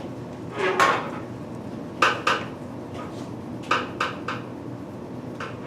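Short clatters and knocks of small hard objects being handled: a brief rustle just before a second in, then a handful of sharp clicks in two clusters.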